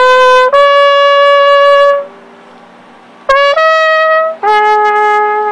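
Trumpet playing long held notes in two phrases, with a break of about a second between them.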